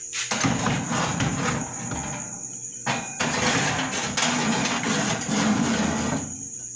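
Rustling and scraping noise in two long stretches with a short break about three seconds in, as a glass baking dish is handled and set onto a metal oven rack. A steady high cricket trill runs underneath.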